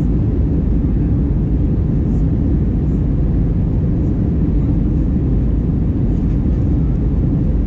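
Steady cabin noise of an Airbus A320 in flight, heard from a window seat by the wing: an even, deep rumble of the jet engines and rushing air.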